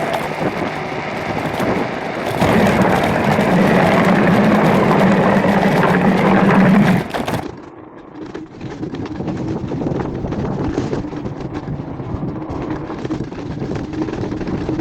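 Scooter running while ridden, loudest in the middle with a steady engine hum. Just past halfway the sound cuts abruptly to a quieter, duller run of the same vehicle sound.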